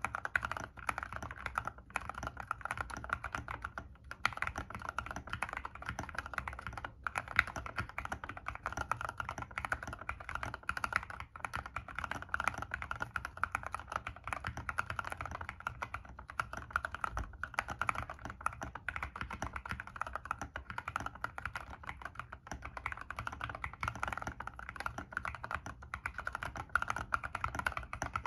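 Continuous fast typing on an Ilovbee i61 mechanical keyboard with lubed full-nylon Gateron Yellow KS3 linear switches and high-profile MA keycaps: a dense run of keystrokes broken by a few short pauses.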